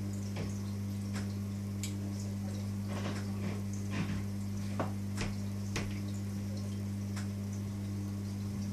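Reef aquarium running: a steady low hum from its pump, with water trickling and irregular drips and clicks.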